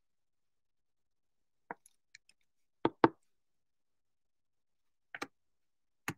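Trading cards in hard plastic holders handled and set down: a handful of short plastic clicks and taps. The loudest is a quick double knock about three seconds in, with another double a couple of seconds later.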